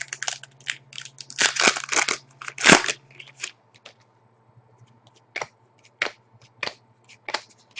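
Foil wrapper of a trading-card pack crinkling and tearing as it is opened, a dense run of crackles for about three seconds, followed by scattered light clicks of cards being handled.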